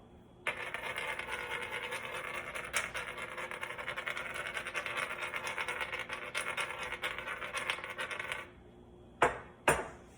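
Hand-twisted salt and pepper grinder grinding steadily for about eight seconds, a dense fast crackle. Two sharp knocks follow near the end.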